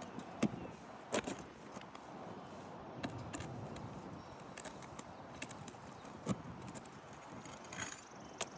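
Scattered sharp knocks and taps of hand tools working asphalt roof shingles, about six, irregularly spaced, over a steady outdoor background noise.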